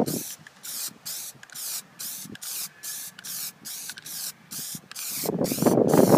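Aerosol can of Plasti Dip rubber coating spraying in short, regular bursts, about three a second, as a light first coat goes onto a chrome truck bumper. About five seconds in, a louder and lower rushing noise joins the spray.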